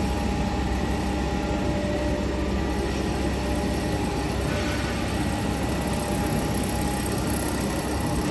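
Kent hydraulic surface grinder running, its motors and hydraulic power pack giving a steady, even hum with a few held tones.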